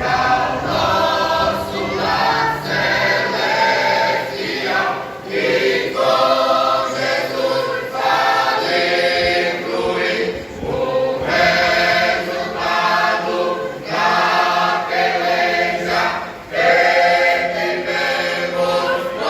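Church choir singing a gospel hymn together, in sustained phrases of several seconds with short pauses between them.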